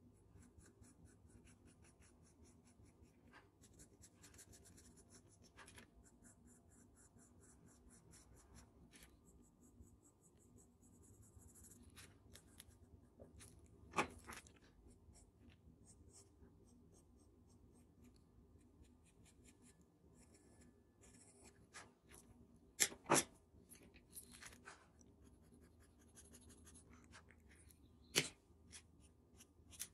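Charcoal pencil scratching on paper in quick short strokes, with a few sharp clicks, the loudest a close pair about two-thirds of the way through.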